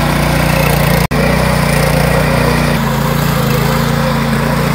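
Mini tiller's small engine running steadily under load while it ploughs a paddy field, with the sound cutting out for an instant about a second in.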